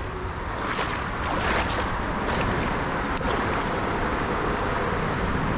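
Steady rushing noise of wind on the microphone and flowing creek water, with a sharp click about three seconds in.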